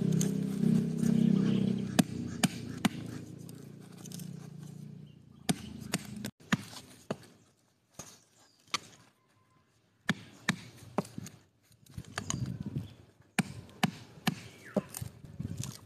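Hammer knocking on a wood chisel as it carves out the inside of a bamboo root: single sharp blows at uneven intervals, with pauses between them. A low steady hum fades out over the first few seconds.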